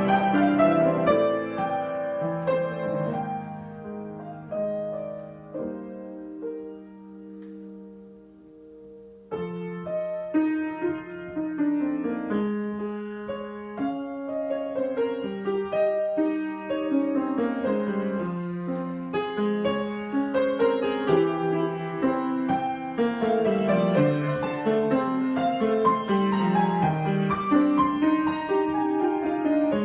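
Solo piano being improvised: chords and runs that thin to a few held notes fading away, then resume fuller and louder about nine seconds in.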